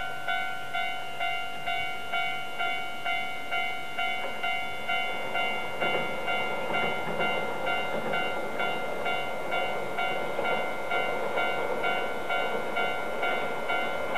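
Level-crossing alarm ringing a repeated electronic ding, a little under two strokes a second. From about six seconds in, an approaching two-car YR-880 diesel railcar train grows louder beneath it: engine and wheels on the rails.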